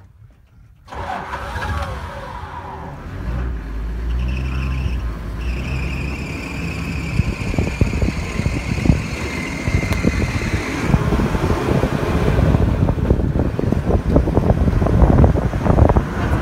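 A safari vehicle's engine starts up about a second in. The vehicle then drives off over rough ground, its engine running louder and louder, with a steady knocking and rattling of the body over the bumps.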